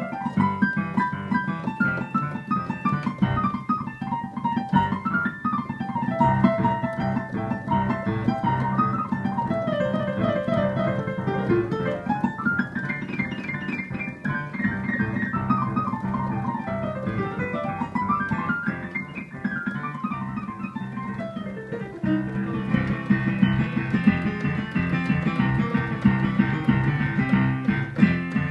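Blues played on a Yamaha digital keyboard with a piano voice: a steady left-hand bass pattern under right-hand runs that climb and fall. About two-thirds of the way through, the playing turns to fuller, louder chords.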